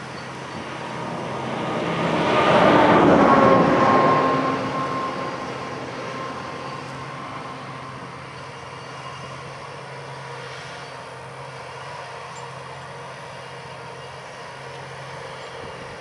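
John Deere 8345R tractor's diesel engine running steadily under load, pulling a 24-foot S-tine field cultivator through the soil. A much louder passing noise swells to a peak about three seconds in, with a slightly falling tone, then fades back to the steady drone.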